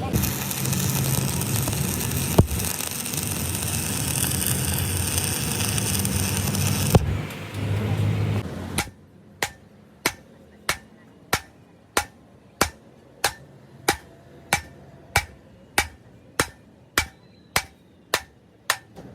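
Steady mechanical running noise with a couple of sharp clicks, which stops about eight seconds in. It is followed by a hand hammer striking about sixteen even blows, roughly one every two-thirds of a second, in a truck repair.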